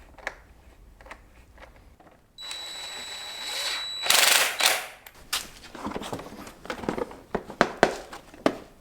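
Plastic motorcycle fairing panels being pushed and snapped into place on a Honda CBR600RR: a run of sharp clicks and knocks, with a louder rushing noise about four seconds in.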